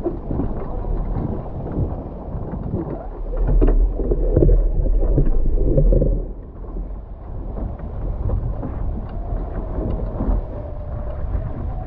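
Wind buffeting the microphone and water rushing and spraying off the hulls of a Nacra 15 catamaran sailing fast, loudest a few seconds in. A faint whine, rising slightly in pitch, comes in near the end.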